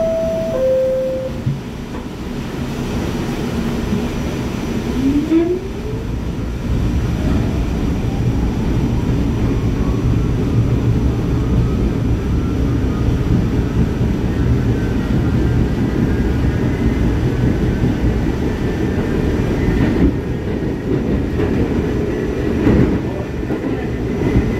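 R44 subway car on the move: a two-note falling chime at the start, then a motor whine rising in pitch about five seconds in as the train gets under way, over a steady loud rumble of the car and its wheels on the track.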